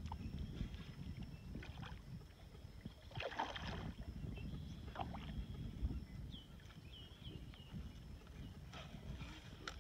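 A hooked fish splashing and thrashing at the water surface beside a small boat, in a few short bursts, over a low rough rumble.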